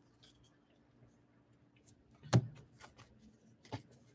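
Quiet handling at a wooden tabletop: one soft thump a little over two seconds in and a few faint clicks around it, as a stack of trading cards is set down and the last foil pack picked up. A faint steady hum underneath.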